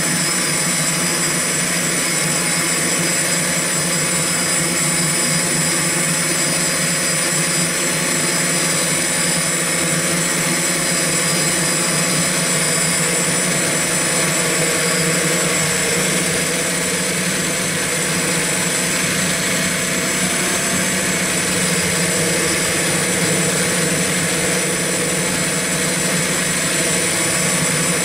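X8 octocopter's electric motors and propellers running steadily in flight: a loud, even whir with several constant whining pitches, heard close from the camera carried on the copter.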